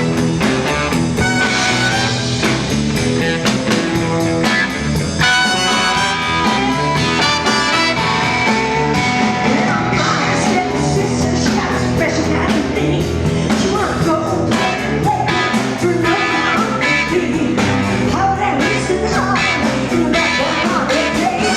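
Rock band playing live: a steady drum beat under electric guitar, in an instrumental stretch between sung lines.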